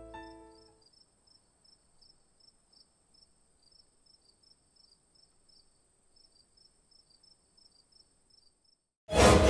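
Faint crickets chirping in an even rhythm, with a thin steady high tone behind them. Music dies away in the first second, and a loud music hit comes in near the end.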